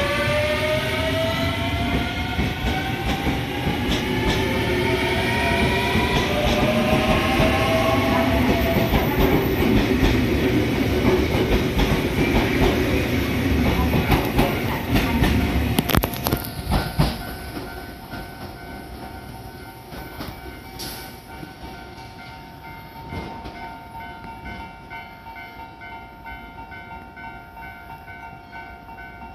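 JR 383 series limited-express electric train pulling out past the platform: its motors whine in several tones that rise steadily in pitch as it accelerates, over loud wheel-on-rail noise with clacks over rail joints as the cars go by. At about 17 seconds the sound drops to a quieter steady background with a few level tones.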